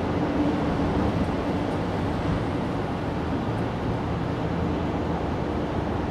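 Steady, even background noise, strongest in the low range, with a faint steady hum running through it.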